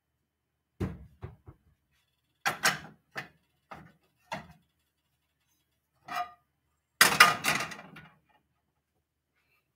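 Frying pans knocking and clattering as they are handled and set down on an electric stove's coil burners: scattered knocks, then a loud clatter of several quick knocks near the end.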